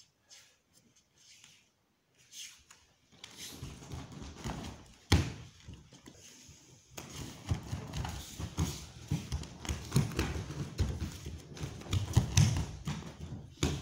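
Bare feet stepping and shuffling on judo mats, with the swish of gi and hakama, as two aikido practitioners move through a technique, starting about three seconds in. Sharp thuds on the mat are mixed in, the loudest about five seconds in and a cluster near the end.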